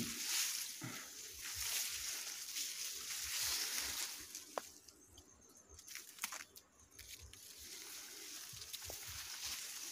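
Ripe rice plants rustling as someone pushes through the dry stalks on foot. The rustling eases for a couple of seconds about halfway through, with a few sharp snaps, then picks up again.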